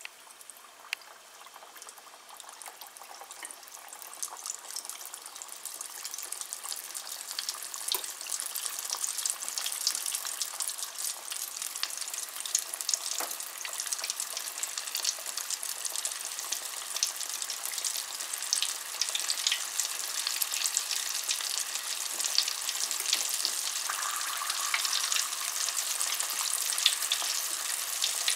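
Flour-coated chicken wings deep-frying in a pot of hot oil: a dense sizzle and crackle that grows steadily louder as more wings go into the oil.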